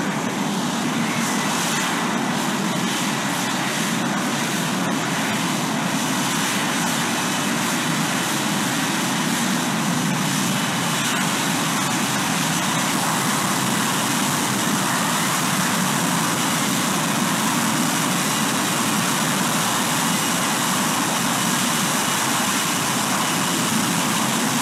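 F-35B fighter jet hovering and descending for a vertical landing, its jet engine and lift fan running with a steady, unbroken jet noise.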